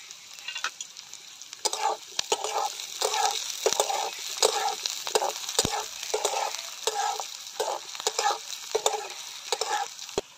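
Sliced onion, garlic and green chillies sizzling in hot oil in a metal kadai. From about two seconds in, a metal spatula stirs them, scraping across the pan about twice a second.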